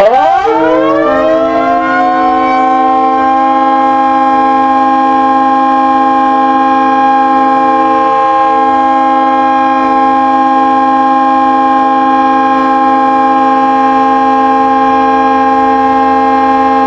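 Hockey goal horn blowing. Several tones glide up at the start and settle into one loud, steady chord, held unbroken for the rest of the blast.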